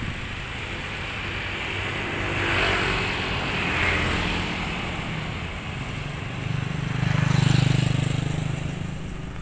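Street traffic with motorcycles riding past; one passes close about seven seconds in, its engine the loudest sound before it fades away.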